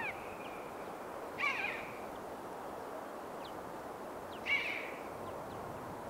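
Common buzzard calling with mewing, downward-sliding cries. The tail of a loud call falls at the very start, and two fainter calls come about a second and a half and four and a half seconds in, over a steady faint hiss.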